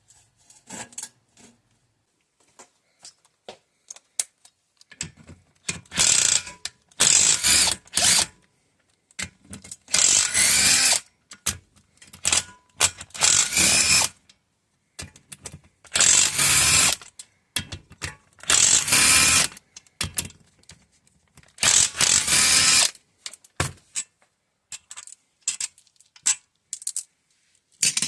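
Ratchet wrench clicking in repeated bursts of about a second each, with short pauses and small clicks between them, as bolts are worked loose on a small 196cc engine.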